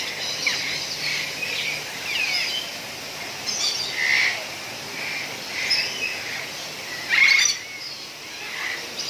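Rainbow lorikeets chattering and screeching: many short, overlapping calls, with a louder, harsher burst of calls about seven seconds in.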